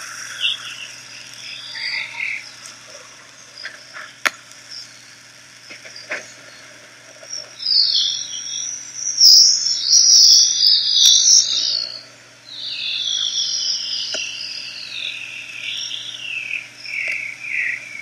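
Sped-up audio of induction magnetometer data carrying a Pc1 geomagnetic pulsation, ion cyclotron waves in the magnetosphere. It is a high, chirping, warbling hiss, faint and patchy at first and loudest just before halfway through. It then drops away and returns as a stretch that slides down in pitch near the end.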